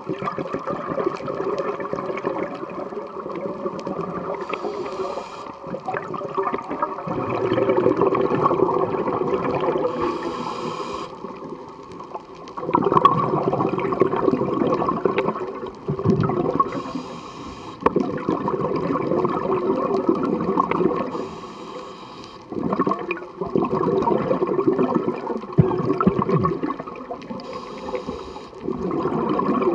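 Scuba diver breathing through a regulator underwater, about five breaths. Each breath is a short hiss on the inhale followed by a longer rush of exhaled bubbles.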